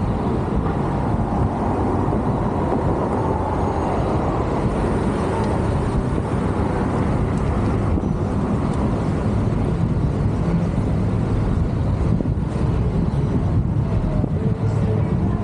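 Steady road and engine rumble inside a moving car's cabin, even and unbroken.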